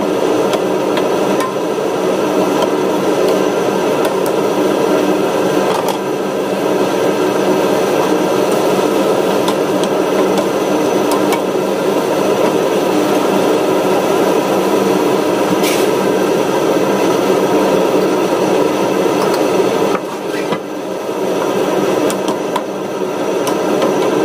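Fried noodles and vegetables stir-fried in a nonstick wok: a steady frying noise with a wooden spatula scraping and knocking against the pan, over a constant mechanical hum. The noise drops for a moment about twenty seconds in.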